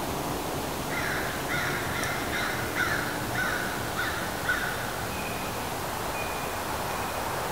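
A crow cawing about seven times in quick succession over a steady background hiss.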